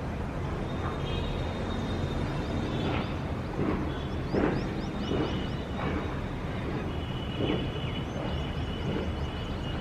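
Outdoor city ambience: a steady low rumble of distant traffic, with birds chirping over it in quick high notes and thin held tones.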